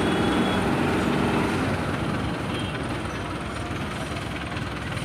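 A motor vehicle engine running steadily, with a low hum that fades about a second and a half in, leaving a steady rumble.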